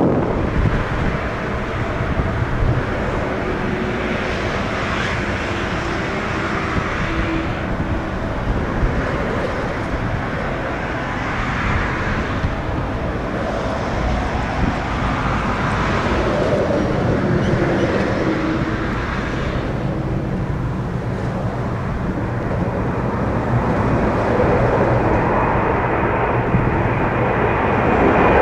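Jet engines of a KLM Airbus A330-300, General Electric CF6 turbofans, running as the airliner departs: a steady jet noise that swells and fades in places and grows louder near the end.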